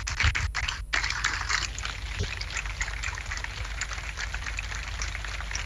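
A crowd applauding, many overlapping claps in a steady stream.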